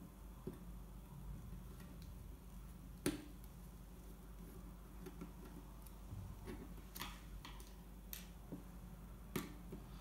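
Faint, scattered small metal clicks of a small screwdriver turning out the screws of a 2.5-inch laptop hard drive's metal mounting bracket, the sharpest about three seconds in.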